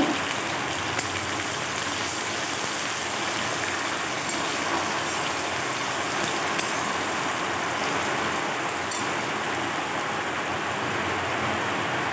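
Sliced onions sizzling steadily in hot mustard oil in a kadai, with a few faint ticks scattered through the frying.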